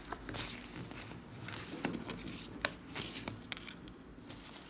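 Cardboard hang tag and jersey fabric being handled close to the microphone: soft rustling with scattered light clicks and taps.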